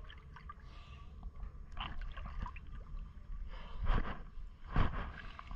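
Water sloshing and splashing close to the microphone over a steady low rumble, with two loud splashes about four and five seconds in.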